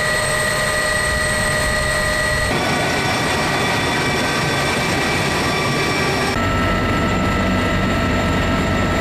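CH-53E Super Stallion heavy-lift helicopter running with its rotors turning: a steady turbine whine with several high, steady tones over a low rotor rumble. The tone changes abruptly about two and a half seconds in and again about six seconds in, and the last part is heard from inside the cabin.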